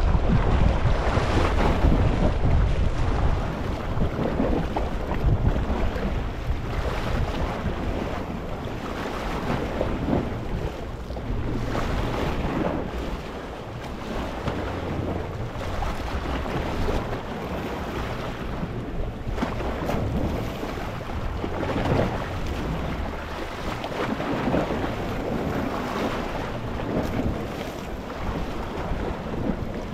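Gentle sea waves washing over a rocky shore, the water rushing and bubbling in repeated surges, loudest in the first few seconds.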